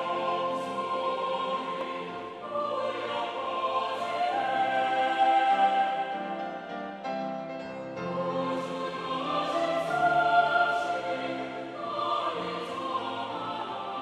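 Mixed choir singing in Korean, in parts, over piano accompaniment.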